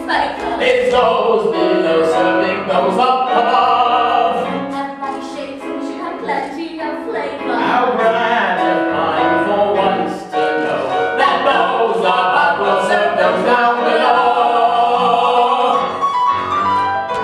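Musical-theatre singing: a voice sings sustained, sweeping phrases over instrumental accompaniment, with a brief dip in loudness about ten seconds in.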